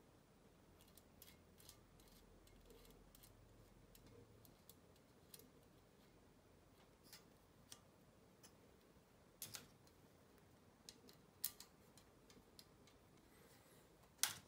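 Faint, scattered clicks and taps of small aluminium parts and screws being handled and fitted together by hand, over near silence. A few sharper clicks come in the second half, the loudest near the end.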